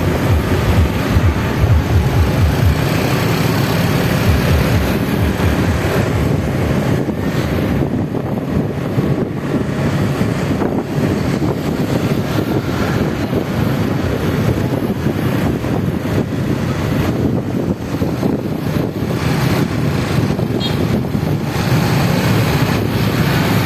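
Loud, distorted bass from a carnival sound system's speaker stacks, a dense low rumble that overloads the microphone.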